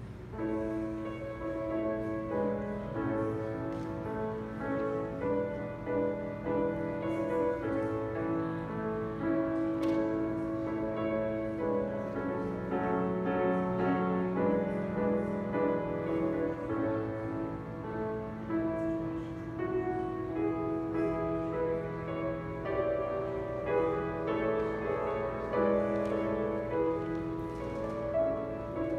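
Grand piano played solo: slow, sustained chords under a melody, swelling louder just after the start.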